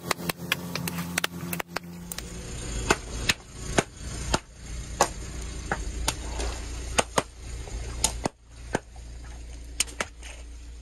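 Long modelling balloons bursting under a slowly rolling car tyre: a string of sharp pops at irregular intervals over the low rumble of the car.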